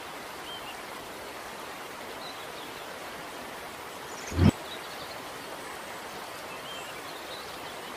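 Quiet outdoor waterside ambience: a steady soft hiss with a few faint bird chirps, and one brief low thump about four seconds in.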